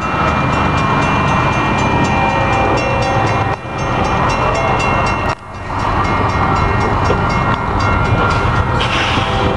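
Railroad grade-crossing warning bell ringing in a rapid, even rhythm, with a low rumble underneath.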